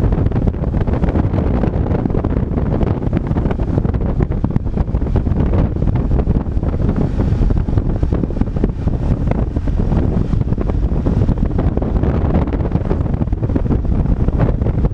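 Wind buffeting on a helmet-mounted action camera's microphone at riding speed on a BMW R 1200 RT motorcycle. It makes a loud, steady rush, strongest in the low end, with the bike's engine and road noise mixed in underneath.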